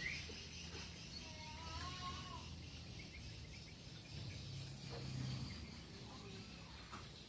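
Faint outdoor ambience: a steady high hiss like insects, with a few short chirps and wavering calls in the first two seconds and a brief low hum about five seconds in.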